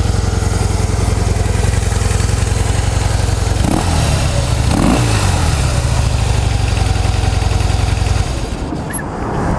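2013 Harley-Davidson Heritage Softail's 103 cubic-inch V-twin idling through its quiet factory exhaust, revved briefly twice about four and five seconds in, then switched off about eight seconds in.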